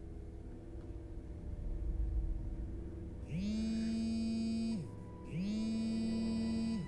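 Smartphone vibrating against the bed for an incoming call: two buzzes about a second and a half long, half a second apart, each rising in pitch as the motor spins up and then holding steady. A low drone sits underneath from the start.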